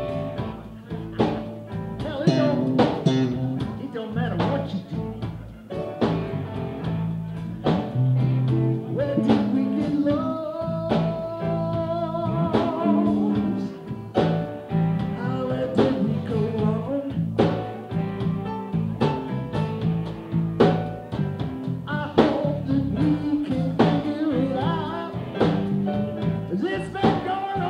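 Live blues-rock band playing, with a steady drum beat, bass, keyboards and a bending lead line with vibrato about ten seconds in.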